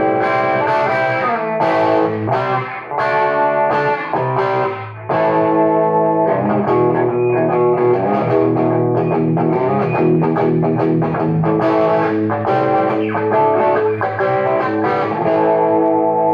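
Electric guitar played through a Hammond AO-43 tube organ amplifier converted for guitar, with picked chords and notes that ring on. The amp is turned halfway up, which gives a moderately overdriven, distorted tone.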